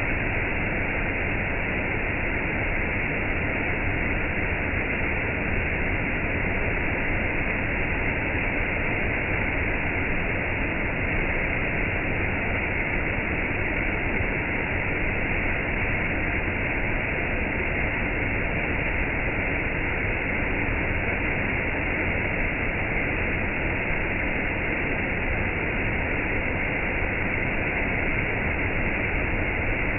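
Steady rush of falling water: gentle rain mixed with a waterfall, even and unbroken, with no single drops or splashes standing out.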